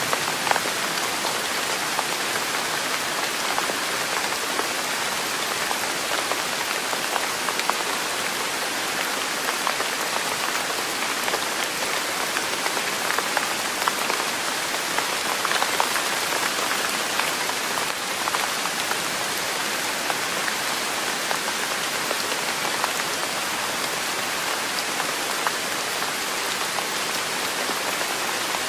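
Steady rain falling: an even hiss speckled with many small drop ticks, unchanging throughout, played as a sleep sound.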